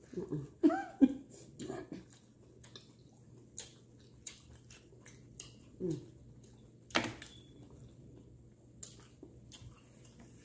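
Close-up chewing and biting of hot-Cheeto-crusted frog legs: scattered short mouth clicks and bites, the sharpest about seven seconds in, with a few brief murmurs in the first two seconds.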